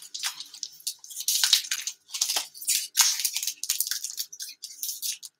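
Hockey trading-card pack wrapper crinkling and tearing as it is peeled open by hand: a quick, irregular run of crackles and rustles.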